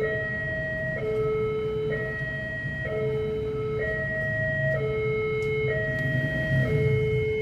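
Railway level-crossing warning alarm sounding a two-tone electronic signal, a high note and a low note alternating about once a second. This is the warning that a train is coming and that road traffic must stop. Road traffic engines rumble underneath.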